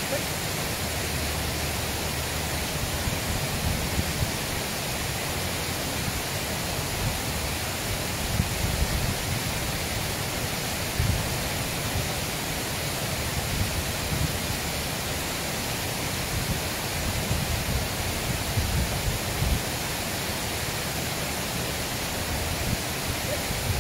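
Steady rush of water flowing over a low dam spillway and across rocks, with irregular low rumbles underneath.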